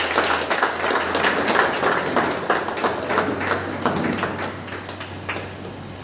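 Audience applauding: a round of hand-clapping that thins out and dies away about five seconds in.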